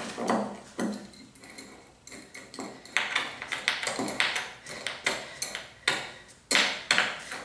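A metal clamp being tightened by hand onto a plywood sheet: a run of short clicks and clinks, irregular and roughly every half second, as the screw handle is turned.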